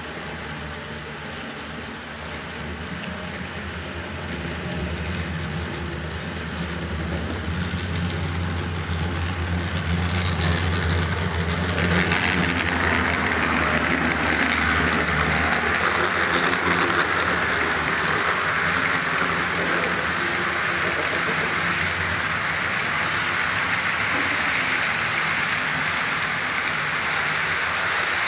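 A model train approaches. A steady low hum from its locomotives grows louder, and then, about halfway through, the rolling rattle of the coal hopper cars' wheels on the track takes over as the cars pass close by.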